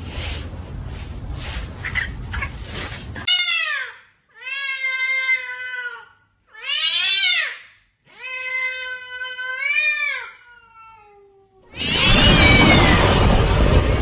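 A cat meowing: four long, drawn-out meows one after another, the last trailing off and falling in pitch, after a few seconds of rough noise. A loud burst of noise starts near the end.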